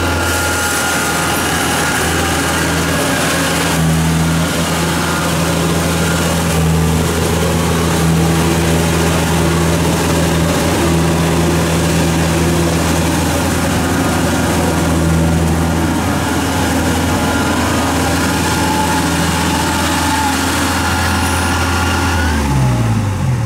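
Kubota DC-70 combine harvester's diesel engine running steadily at working revs while the machine harvests rice. The engine note changes pitch near the end as it throttles back.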